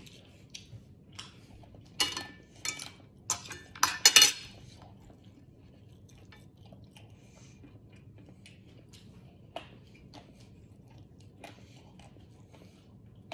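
A fork and dinner plate clinking and knocking on a wooden table in a short flurry from about two to four and a half seconds in, loudest near four seconds; after that only a few faint ticks.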